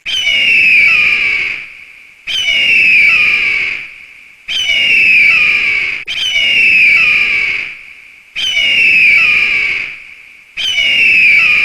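Eagle scream sound effect: the same harsh, downward-sliding scream repeated six times, each call about a second and a half to two seconds long, with short gaps between them.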